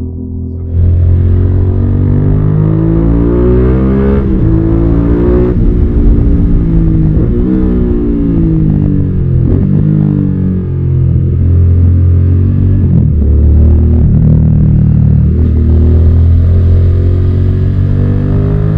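Suzuki SV650's 645 cc V-twin engine being ridden hard. Its note climbs in pitch and drops back at each gear change, several times over.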